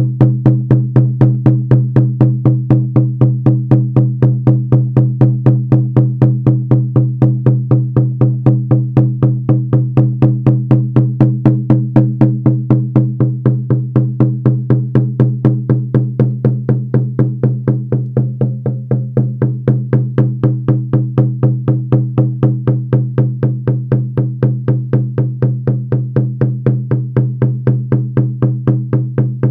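Shamanic frame drum beaten in a steady, unbroken rhythm of about four beats a second, with a deep ring sustained under the strokes: monotonous trance drumming for a shamanic journey.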